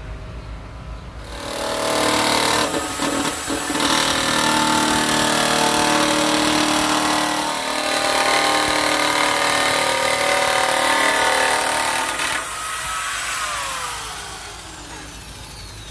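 Parkside electric nibbler running and cutting through metal sheet, a loud steady whine with a chattering cut. It stops about twelve seconds in and its pitch falls as the motor spins down.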